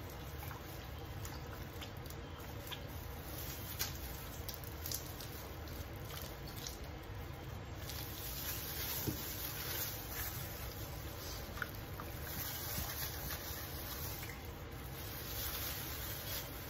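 Soft wet squishing and patting of plastic-gloved hands working lemon juice and marinade into a raw turkey, with a few light clicks over a steady low background noise.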